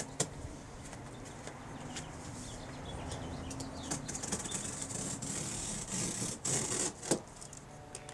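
Utility knife cutting through a cardboard water-heater carton: scratchy slicing, with one long cut from about halfway through for a couple of seconds and a sharp knock against the box near the end.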